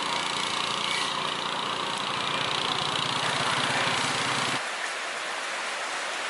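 Engine running steadily with a low pulsing rumble, cutting off abruptly about four and a half seconds in to a thin steady hiss.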